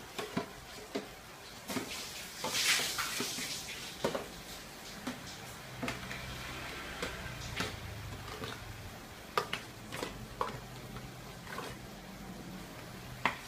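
A metal spoon scraping and knocking in an aluminium foil tray as food is scooped out into a steel pan, giving irregular clicks and taps with a longer hissing scrape a couple of seconds in.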